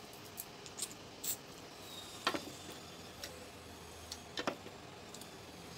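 Eating by hand from a plate: a handful of short, irregularly spaced clicks and smacks from chewing and from fingers picking at the plate, over faint room hiss.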